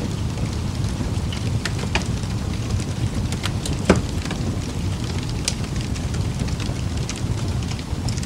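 Rain recording: a steady low rumble with scattered drops ticking, and one sharper tick about four seconds in.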